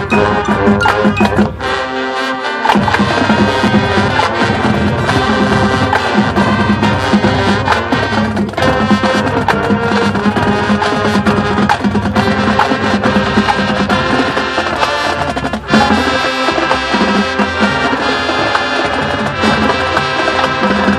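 High school marching band playing its show: brass winds with percussion, loud and sustained.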